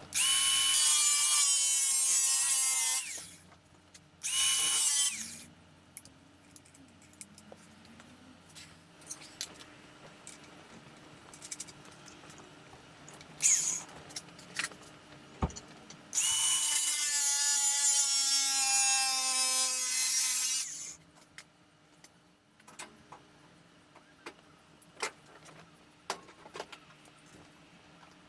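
Electric power tool worked on the steel repair panel in three runs: about three seconds, a short one just under a second, then about five seconds. Each ends with a falling whine as the tool winds down. Light metallic clicks and taps come between the runs.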